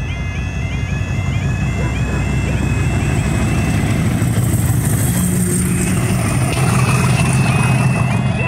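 Diesel locomotive passing close by, its engine rumble getting louder as it goes past, with a high whine that slowly falls in pitch. A level crossing's warbling alarm sounds over the first few seconds.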